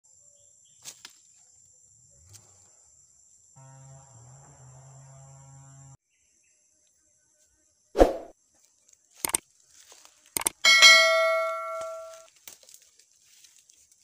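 A subscribe-button animation sound effect: a thump about eight seconds in, a couple of clicks, then a bell rings out and fades over about a second and a half. Before it there is only a faint steady high tone.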